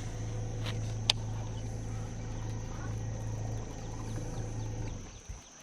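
Bass boat's electric trolling motor running with a steady low hum, which stops about five seconds in. There is a sharp click about a second in, and a thin high whine behind.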